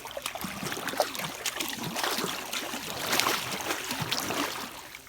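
Water splashing and trickling against an aluminum boat hull: irregular small splashes and gurgles, with no outboard motor running. It fades toward the end.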